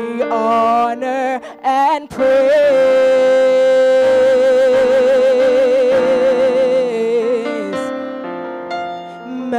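A woman singing a gospel worship song into a microphone over keyboard chords. She sings short rising phrases, then holds one long note with a wide vibrato for about five seconds. Her voice fades out near the end while the chords carry on.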